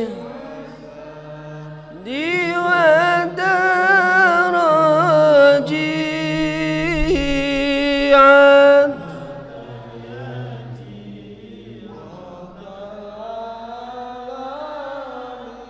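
Men's voices chanting an Arabic sholawat (devotional verses praising the Prophet) into microphones: a loud solo line with long, ornamented melismas, then a softer sustained line from about nine seconds in.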